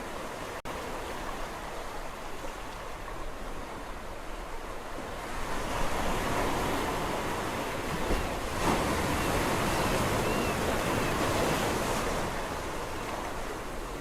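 Sea waves on the shore, a steady wash of surf. About five seconds in, a larger wave builds and breaks, surging loudly for several seconds before it draws back and fades.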